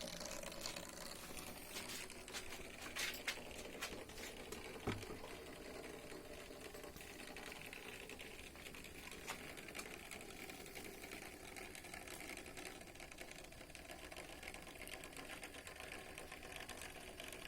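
Model railway motor coach running steadily along the track, its small electric motor and wheels giving a faint continuous hum. A few light clicks come around three and five seconds in.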